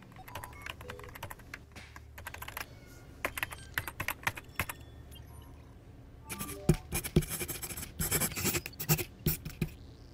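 Computer keyboard being typed on in irregular runs of keystrokes, sparse at first and faster and denser in the second half.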